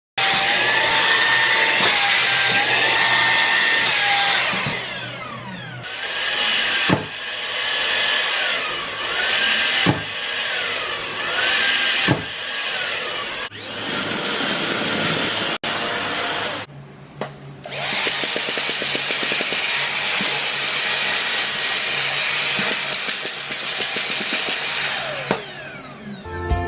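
Vacuum cleaner motor running with a high whine over rushing air, its pitch stepping up and down and dipping several times. There are a few sharp clicks. The motor winds down and restarts more than once, cutting out briefly about two-thirds of the way through and winding down again near the end.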